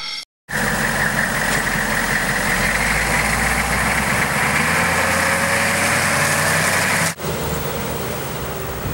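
A motor vehicle's engine running steadily under a loud hiss. It cuts off abruptly about seven seconds in, and a quieter vehicle sound follows.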